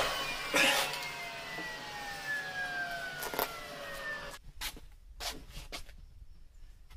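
Cordless drill driving screws into wooden wall boards in two short bursts, about half a second in and again past the middle, over a humming tone that slowly falls in pitch. Then a few light knocks and taps of boards being handled.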